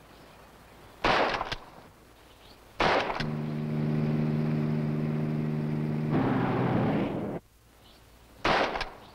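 .22 rifle fired three times, sharp single cracks about a second in, about three seconds in and near the end. Between the second and third shots a steady low sound with several pitches held together runs for about four seconds over a hiss, then cuts off suddenly.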